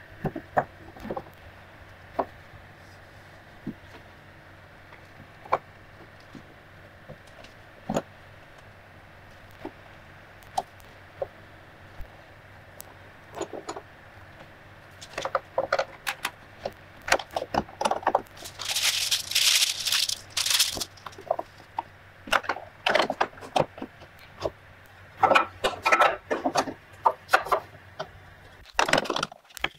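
Wooden cutting-board blank and iron pipe clamps being handled in a glue-up: scattered knocks and clicks of wood against metal, with clamp parts rattling and scraping. The sounds are sparse at first and grow busier past the halfway point, with a short hissy stretch about two-thirds of the way through.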